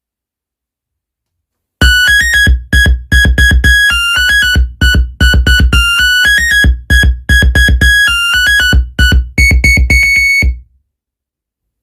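A monophonic phone ringtone, a quick one-note-at-a-time electronic melody, played loud through a JBL PartyBox 310 speaker with bass boost on, with a heavy bass thud under each note. It starts about two seconds in and cuts off abruptly near the end.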